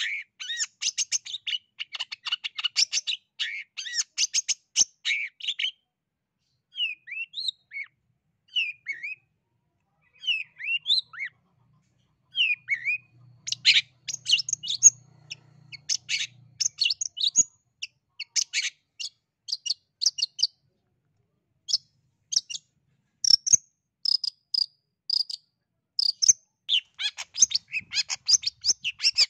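Caged long-tailed shrike (cendet) singing: fast runs of short chattering notes, broken a few seconds in by single slurred whistles, then dense chatter again with a few repeated clear notes near the end.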